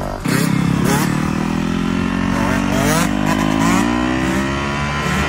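Dirt bike engine revving at high throttle, its pitch climbing in several sweeps.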